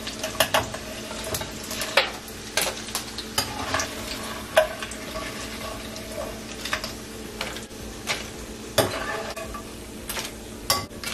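Corn tortilla pieces frying in hot oil in a skillet, a steady sizzle, with irregular clicks and clatters of metal tongs and crisp fried chips being moved onto a paper-towel-lined tray.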